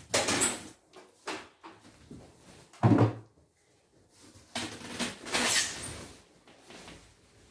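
Cardboard box and packing rustling and scraping as an embroidery machine is unpacked, with one heavy thump about three seconds in as the machine is set down on a wooden workbench, then more rustling from the box.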